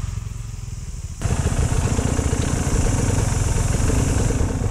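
KTM 300 EXC TPI two-stroke dirt bike engine running under way on a trail, with wind hiss. The engine sound jumps abruptly louder about a second in.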